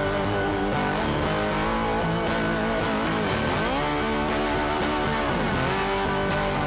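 Background music with guitar, its notes bending and sliding in pitch.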